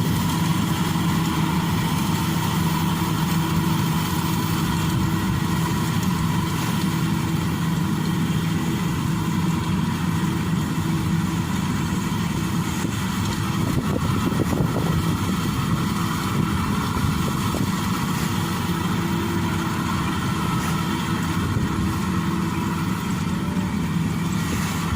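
Rice combine harvester running steadily: an even engine drone that holds the same pitch throughout.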